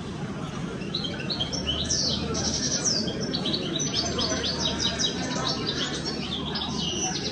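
Many small caged birds chirping and twittering at once, short high calls overlapping, from about a second in, over the low murmur of a crowd.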